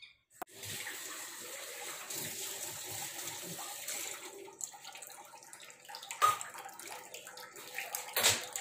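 Tap water running into a steel kitchen sink while dishes are washed, the flow easing after about four seconds. A couple of sharp clanks of utensils follow, the louder one near the end.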